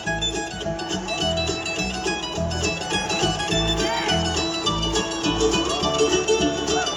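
Live band playing an instrumental break: string instruments over a steady pulsing bass beat, with a few sliding notes about four seconds in.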